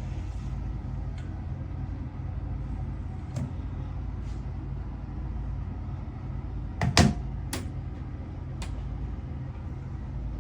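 A steady low hum with a few sharp clicks and knocks; the loudest cluster comes about seven seconds in.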